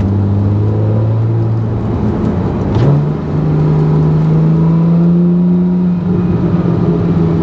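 Porsche 911 Carrera 4 GTS (991) flat-six engine heard from inside the cabin while driving. It holds a steady note, then about three seconds in the revs jump sharply with a brief dip in level, and it pulls on at the higher revs, rising gently before easing slightly near the end.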